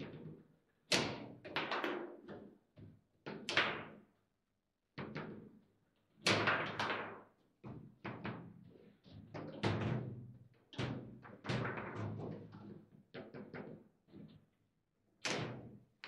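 Table football (foosball) table in play: irregular clusters of sharp hard knocks and clacks as the ball is struck by the plastic figures and the rods are slammed and spun, with short lulls between rallies.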